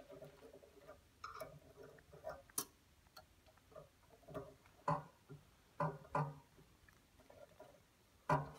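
Faint handling noises from fitting the thermal analyzer's sensor: about a dozen short clicks and knocks at irregular spacing, the loudest about five seconds in and just before the end.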